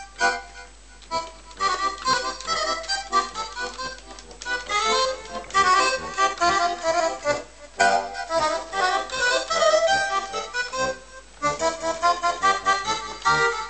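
Roland digital accordion playing a lively polka: quick melody notes on the treble keys in short phrases, with brief breaks between phrases.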